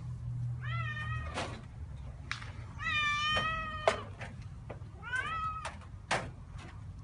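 Domestic cats meowing three times, about a second in, at three seconds and at five seconds, each call rising and then held. Sharp knocks come between the calls.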